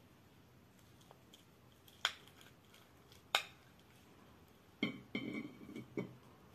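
Metal spoon and ceramic plates clinking as mashed potato is spooned from one plate onto another: two sharp clinks about two and three seconds in, then a quick run of ringing clinks near the end.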